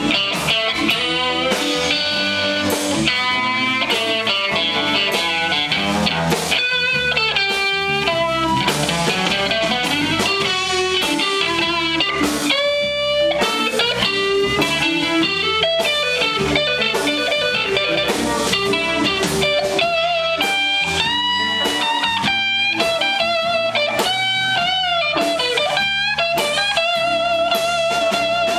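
Electric guitar solo on a Stratocaster-style guitar: single-note lead lines with string bends and held, wavering notes, over a blues band's bass and drums.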